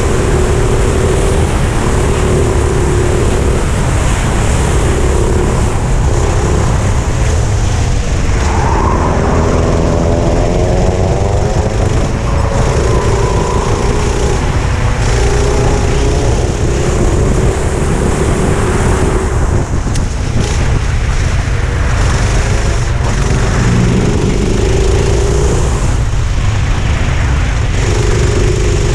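Four-stroke kart engine running at racing speed, heard from onboard the kart. Its note climbs as the kart accelerates, most clearly about eight seconds in, then holds and falls back through the corners.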